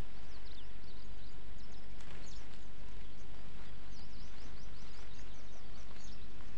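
Steady outdoor background noise with many short, high, quick chirps of small birds scattered throughout.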